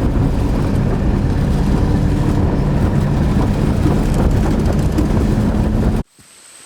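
A motor vehicle's engine running with a heavy, steady low rumble and road noise. It cuts off abruptly about six seconds in, leaving a much quieter background with a faint, steady high-pitched whine.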